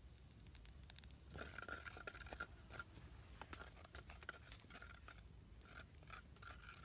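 Faint scraping and clicking of a spatula working in a blackened pan over a wood fire, with an on-and-off high buzz from about a second and a half in.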